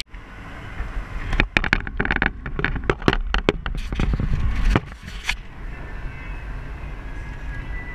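Car driving on a wet road. For about five seconds there is rumble broken by loud, irregular knocks. Then comes the steadier, quieter road and engine noise inside the car's cabin.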